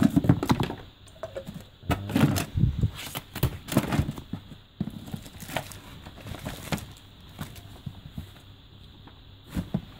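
Irregular rustling, crinkling and light knocks of plastic sleeves, papers and magazines being shifted about by hand in a cardboard box, busiest in the first half.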